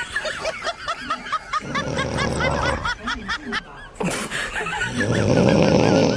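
Snoring: two long, loud, noisy breaths, one about a second and a half in and one about four seconds in, over continuous rapid high-pitched chirping.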